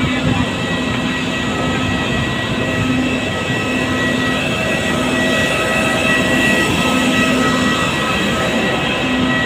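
Jet airliner running on the apron at close range: a loud, steady roar with several steady whining tones over it.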